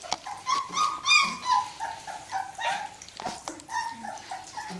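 Young Berger Blanc Suisse puppies whining and yelping in a run of short, high-pitched cries, loudest about a second in, with a few small clicks between them.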